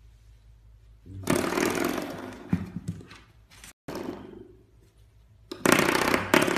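Spring doorstop twanging as a puppy knocks it, the second time with its paw. It makes a buzzy, rattling boing that dies away over about a second. This happens twice: about a second in and again near the end.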